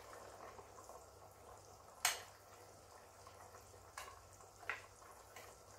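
Metal ladle clinking against a ceramic bowl and a stainless steel pot as hot broth is ladled and the mix stirred: one sharp clink about two seconds in and two lighter ones near the end. Faint bubbling of boiling broth sits underneath.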